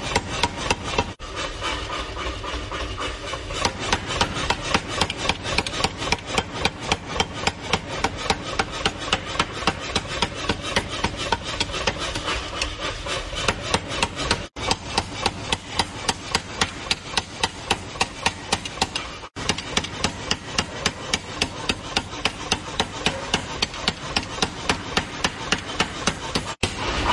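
Mechanical power hammer rapidly pounding a red-hot blank of car leaf-spring steel into a cleaver, a steady train of heavy blows about four a second, broken by a few split-second gaps.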